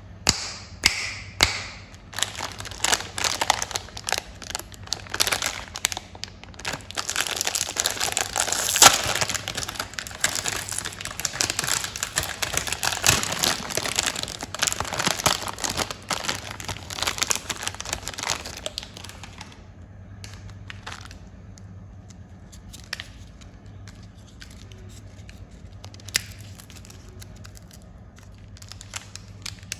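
Candy and chocolate wrappers being crinkled and torn open by hand, a dense crackling for roughly the first two-thirds, then sparser, quieter crinkles and clicks.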